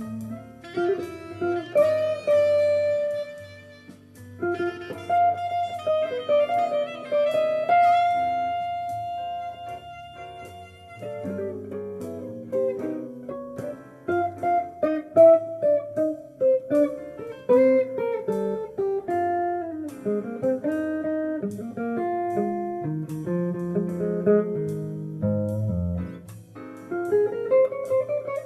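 Guitar playing jazz: picked single-note melody lines mixed with chords, over low bass notes.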